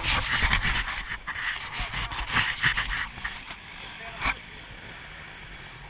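Dirt bikes running and pulling away, heard as a loud, rough rush with repeated surges on the helmet camera's microphone, easing off after about three seconds. A single sharp knock sounds just after four seconds.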